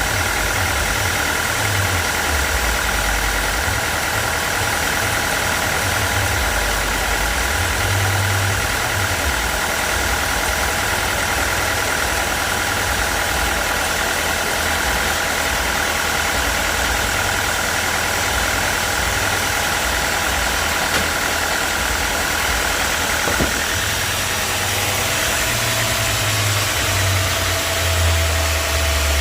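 Sawmill's engine running steadily under load, with a steady high whine over it that changes about 23 seconds in.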